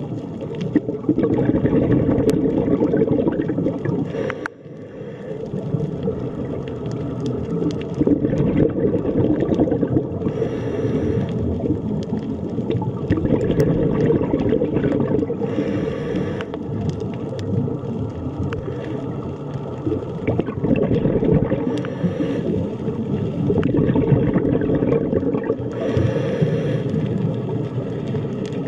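Muffled underwater noise picked up by a submerged camera: a steady low rumble with gurgling, broken several times by short hissy surges.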